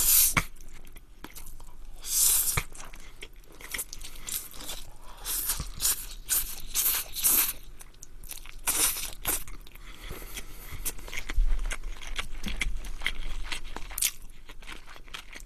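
A man eating spaghetti close to the microphone: he slurps a forkful of noodles in, then chews in irregular, uneven bursts of mouth noise.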